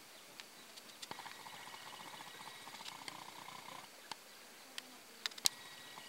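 Plains vizcachas making a faint, rapid purring chatter from about a second in, lasting a few seconds, over a steady high whine. Several sharp clicks come through, the loudest about five and a half seconds in.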